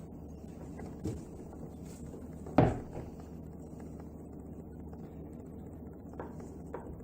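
Knife and dough knocking on a cutting board as bread dough is cut into pieces: one sharp knock about two and a half seconds in, with a few lighter knocks and clicks, over a steady low hum.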